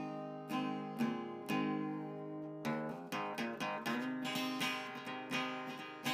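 Intro music: an acoustic guitar picking single notes about twice a second, with quicker runs of strummed chords in the middle and near the end.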